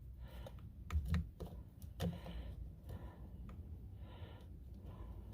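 Scattered light clicks and taps of small parts being handled and fitted at a steering wheel, the paddle shifter and its bracket, with the loudest knocks about one and two seconds in.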